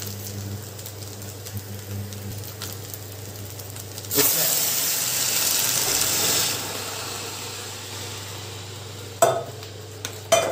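Jaggery syrup poured into a hot steel pot of cooking white gourd, hissing loudly in a rush of steam for about two seconds, starting about four seconds in. Before it the pot sizzles quietly over a low steady hum. A metal ladle knocks against the pot twice near the end.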